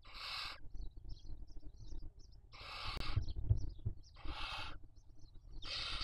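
Barn owl chicks' hissing begging calls: four harsh, breathy hisses of about half a second each, spaced a second and a half to two seconds apart, the drawn-out snore-like call with which the young beg to be fed.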